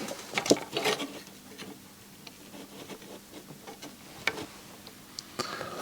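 A few light, scattered clicks and taps of small tools and a component being handled during soldering work on a circuit board.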